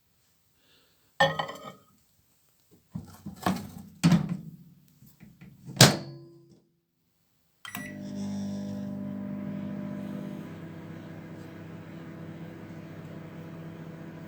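Sharp R242 microwave oven: a sharp click, then a series of clicks and knocks with one loud snap, then the oven starts and runs with a steady hum that settles a little lower after a couple of seconds.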